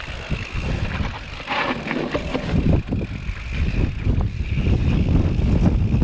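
Mountain bike riding down a dirt singletrack: wind rumbling on the action camera's microphone, with the tyres on the dirt and the bike clattering and rattling over the bumps.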